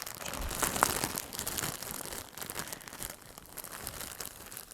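Packaging being handled and unwrapped, crinkling and rustling, busiest in the first couple of seconds and then dying down to faint rustles.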